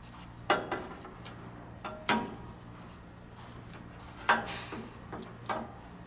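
Irregular sharp clicks and knocks as a metal-can air-conditioner run capacitor, its wire terminals still attached, is handled and pushed back into its mounting on the sheet-metal chassis after testing good.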